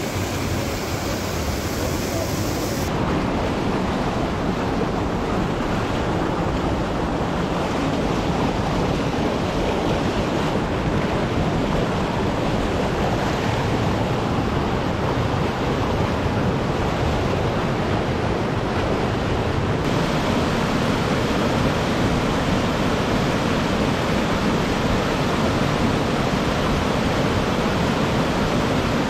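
Steady rush of a mountain creek cascading over boulders. The tone shifts slightly about three seconds in and again about two-thirds of the way through.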